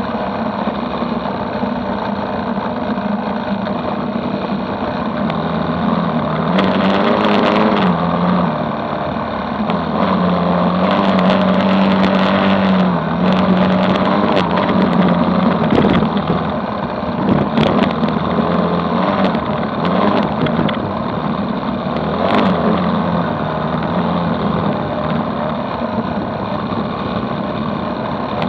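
Engine of an off-road vehicle running under way on a dirt road, heard from on board, its pitch shifting up and down with the throttle several times. Short knocks and rattles from bumps in the gravel road come through now and then.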